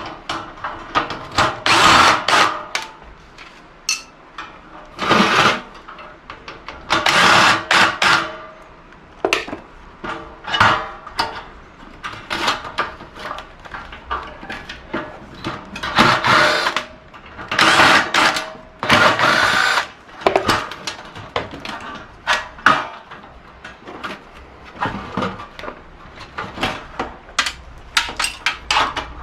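Power drill run in repeated short bursts, about a dozen times, backing out screws to take a part off a gas wall heater.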